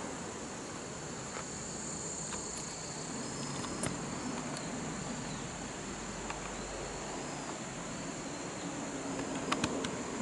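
Steady high-pitched chorus of autumn insects singing, with a few faint clicks near the end.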